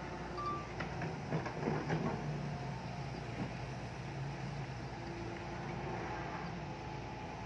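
Heavy diesel earthmoving machinery running steadily, with a few knocks and clanks about one to two seconds in.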